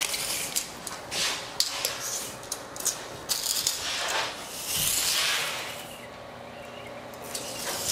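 Handling noises: scattered sharp clicks and taps, with a few brief rubbing or scraping sweeps as a hand and a small tool work along a plastic-film-covered stainless steel sheet.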